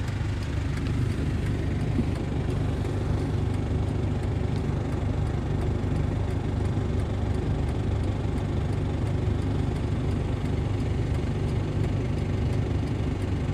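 A vehicle's engine idling with a steady low hum, heard from inside the cab.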